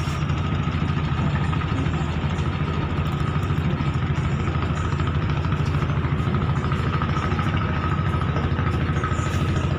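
A passenger ship's diesel engines running steadily while it docks, heard on deck: a low rumble with a rapid pulse and a steady whine above it.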